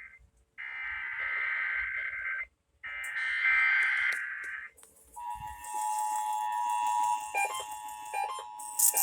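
Emergency Alert System header: two bursts of the warbling digital data tone, each about two seconds long with short gaps between them. About five seconds in, the steady two-tone EAS attention signal begins.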